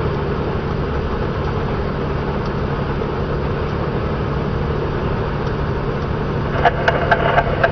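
Semi-truck cruising at highway speed, heard from the cab: a steady low engine drone with road and tyre noise. A few short sharp clicks come in near the end.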